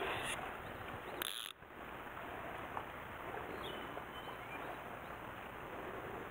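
Steady rush of a mountain stream's flowing water, with a few faint bird chirps. About a second and a half in, a short hiss is followed by a momentary dropout.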